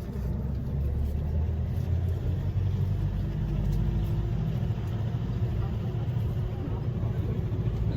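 Steady low rumble of a road vehicle running, engine and road noise.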